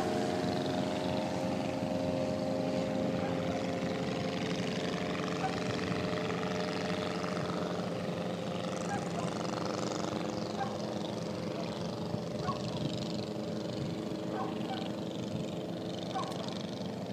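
Light propeller aircraft flying overhead, its engine making a steady drone that slowly fades as it draws away.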